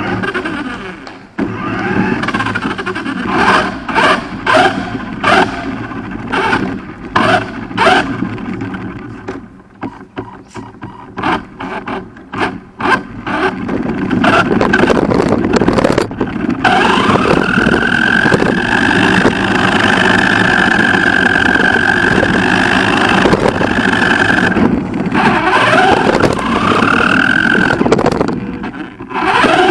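RC monster truck heard from on board. For the first half its tyres and chassis rattle and knock over hard ground under a low rumble of the drive. From about halfway the motor's high whine winds up and holds steady at speed, dropping away and winding back up twice near the end.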